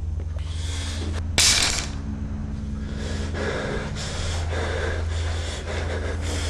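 A person breathing hard: one loud, sharp gasp about a second and a half in, then quick, heavy breaths, about two a second. A steady low hum runs underneath.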